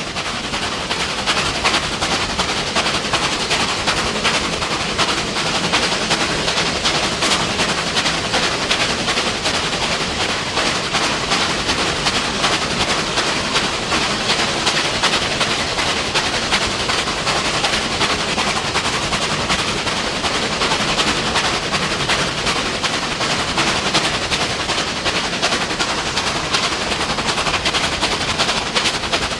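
NSW 38 class Pacific steam locomotives working under steam, heard close up from the cab: a fast, even run of sharp exhaust beats mixed with running noise. The sound swells in at the start, then holds loud and steady.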